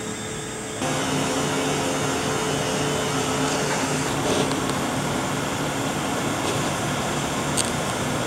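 Steady mechanical hum and whir of a spiral tank-forming machine running as stainless steel strip feeds through its rollers; it gets louder about a second in.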